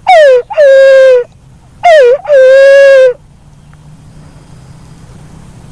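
Black-naped fruit dove (walik kembang) calling twice. Each call is a short falling note followed by a longer, hooting note that falls and then holds steady, ending about three seconds in.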